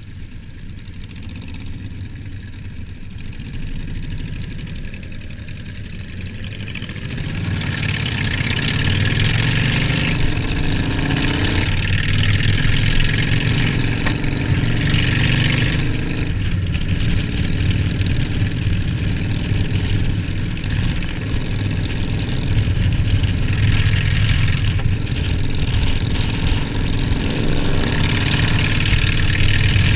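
Cruiser motorcycle engine running while riding, with the rush of wind on the open bike. It gets louder from about seven seconds in, and its pitch climbs several times as it speeds up.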